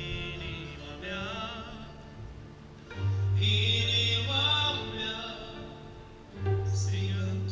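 A violin playing with vibrato, joined about three seconds in by a man singing through a microphone and PA. He sings two phrases over the violin.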